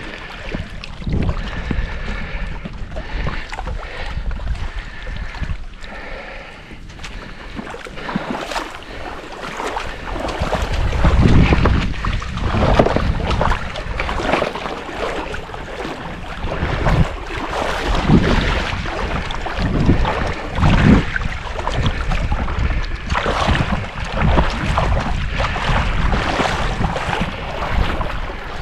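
Wind rumbling on the microphone in gusts, with water sloshing and splashing and irregular knocks.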